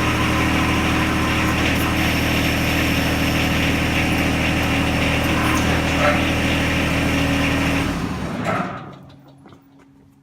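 John Deere 1025R compact tractor's three-cylinder diesel engine running at a steady speed, then shut off about eight seconds in, the sound dying away over about a second.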